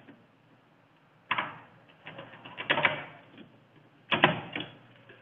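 Hand tool clicking and rattling against the contactors and terminals of a motor control panel as a component is worked loose, in three short bursts of sharp clicks.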